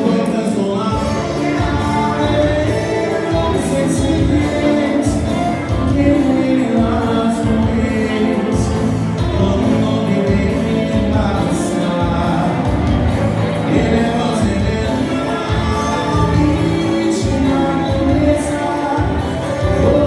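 Live dance music with a singer over a steady beat.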